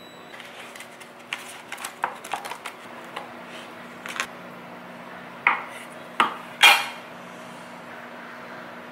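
Dishes and cutlery clinking and clattering: a run of light clinks, then three louder knocks in quick succession, over a steady low hum.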